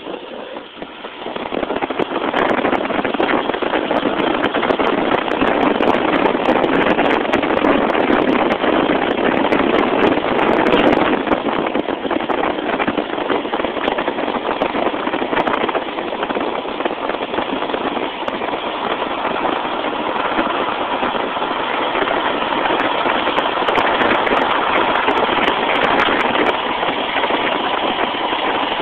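Steady rushing noise of wind buffeting a camera phone's microphone, mixed with the roll of longboard wheels on asphalt at about 50–60 km/h. It swells about a second or two in as speed builds, then holds.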